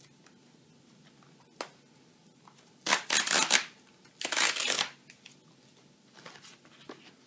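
Cardboard pull-tab tear strip ripped open along the edge of a cardboard box in two short pulls, after a light tap on the box.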